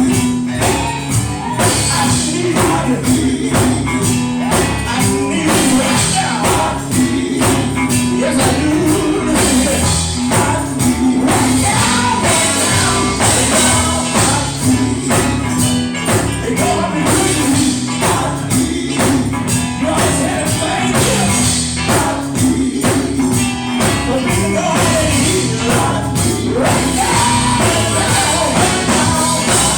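Live gospel song: voices singing together over a band with a steady, driving beat.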